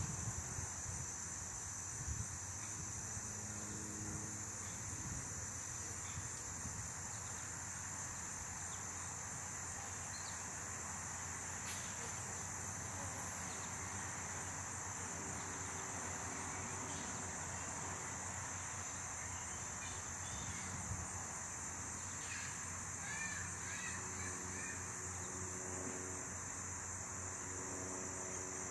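Honey bees buzzing around an opened hive, over a steady high chirring of insects. A few brief bird calls come in during the last third.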